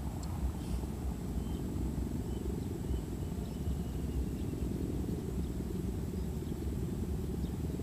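Steady low rumbling noise with no distinct events, and a faint high whine above it.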